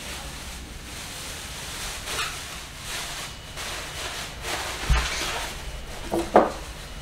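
Clear plastic bag and stretch wrap rustling and crinkling as a new PC tower case is unwrapped. A dull thump comes about five seconds in, and two sharp knocks follow near the end, the second the loudest.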